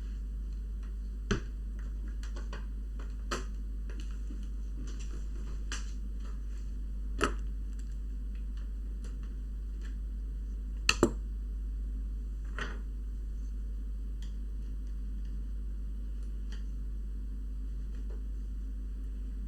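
Scattered sharp clicks and taps of laptop parts being handled during a repair. A quick double click about eleven seconds in is the loudest. A steady low hum runs underneath.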